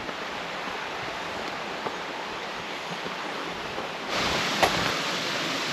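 Steady rush of running water from a river or waterfall, which gets louder about four seconds in, with a single short knock just after.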